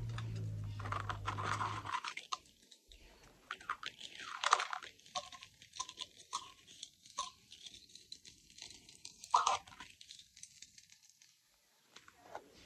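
Quiet, scattered rustling, crinkling and light clicks of small items and plastic pouches being handled and packed away in a bag. A low hum runs underneath for the first two seconds, then stops.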